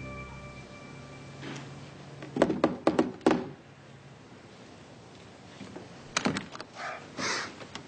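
Knocking on a door: a quick run of about five sharp knocks about two and a half seconds in. A few seconds later come softer clicks and shuffling as the door is opened.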